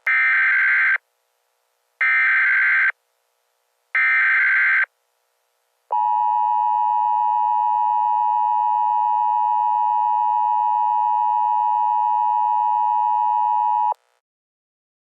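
Emergency Alert System SAME header: three one-second bursts of shrill digital data warble about a second apart. Then comes the EAS two-tone attention signal, held steady for about eight seconds and cutting off abruptly. This sequence announces the start of a new emergency alert.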